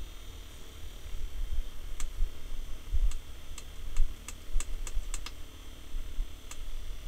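Small USB LED clock fan running, with a low rumble and about ten sharp light clicks, most of them bunched together in the middle.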